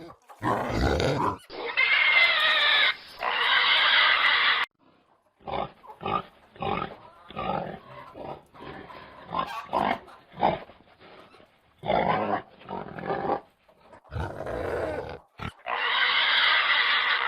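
Pigs squealing in two long, loud screams, one about two seconds in and one near the end, with a run of short grunts between them.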